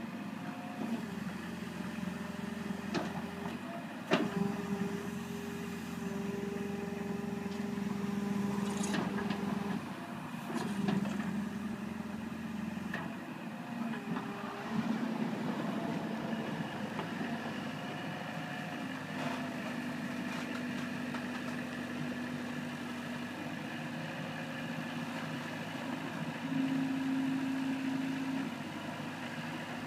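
Sumitomo SH75U compact excavator's diesel engine running, with held whines that step up and down in pitch as it works. A few sharp knocks come through, the loudest about four seconds in.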